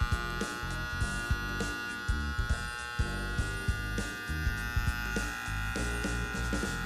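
Andis T-Outliner trimmer fitted with a Nice Barber Silver Horse blade held by flat-head screws, running with a steady high buzz; its owner finds it quieter and smoother than with round-head screws. Background music with a steady beat plays underneath.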